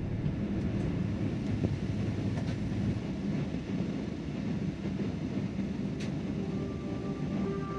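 Airliner cabin noise heard from inside the plane: a steady rush of engines and airflow. Near the end a few held musical tones come in.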